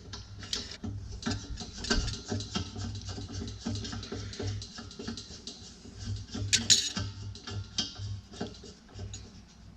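Hands handling an LPG hose and regulator fittings, with scattered clicks, taps and rustles. The loudest is a sharp burst about six and a half seconds in.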